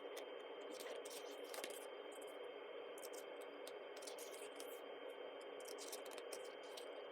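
Faint steady room hiss with light, scattered rustles and clicks of paper being handled as a photobook's pages are turned.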